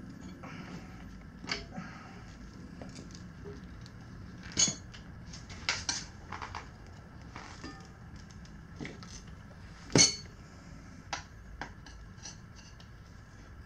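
Steel tire irons clinking and knocking against a motorcycle wheel rim while a tire bead is levered on, in sharp separate clanks, the loudest about ten seconds in.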